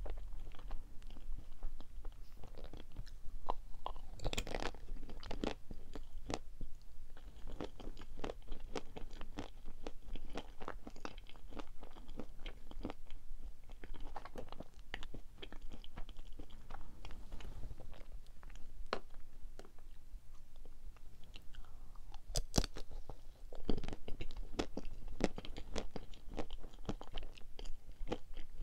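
Close-up chewing and biting of chocolate-coated cream-filled confections: a run of small wet clicks and crackles of the thin chocolate shell, with sharper bites about four seconds in and again near the end.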